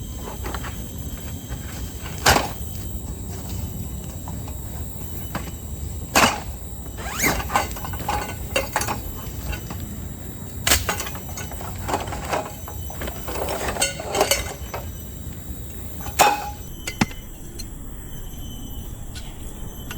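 Irregular sharp knocks and cracks, a dozen or more, the loudest about two, six, eleven and sixteen seconds in, over a steady background hiss with a few faint steady high tones. The knocks stop a few seconds before the end.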